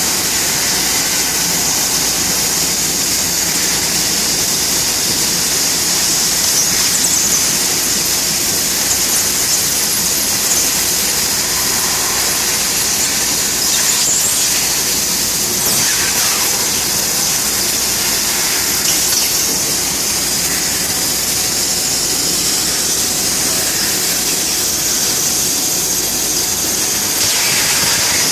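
Bystronic CNC laser cutting machine running: a loud, steady, high-pitched hiss that holds almost unchanged throughout.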